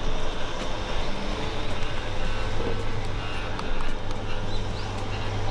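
Steady machine running with a low hum and a noisy rumble, and a few short high beeps.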